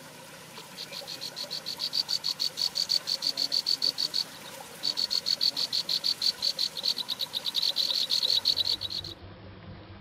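A rapid, evenly pulsed high chirping trill from an animal, about eight chirps a second, in two long runs with a short break about four seconds in; it stops abruptly near the end.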